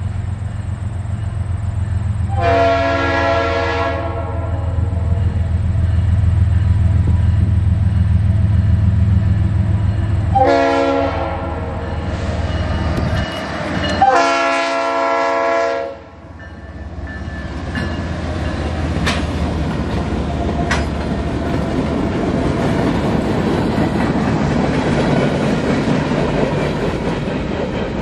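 Canadian National freight train's diesel locomotives rumbling closer and sounding the air horn in three blasts of one to two seconds each, about two, ten and fourteen seconds in, for the grade crossing. Then the freight cars roll past with a steady rolling noise of wheels on rail.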